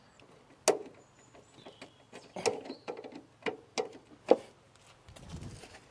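Irregular small metal clicks and taps of side-cutting pliers working a split pin out of the spring-rod ball-joint retainer on a Citroën DS front suspension arm, with one sharper click about three quarters of the way through.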